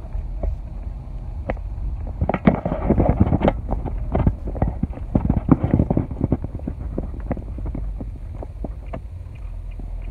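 Steady low road and engine rumble inside a moving car's cabin, overlaid by many irregular sharp clicks and knocks from a phone being handled and turned, thickest in the middle.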